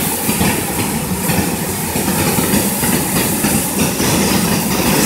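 Steady, loud rush of fast-flowing river water.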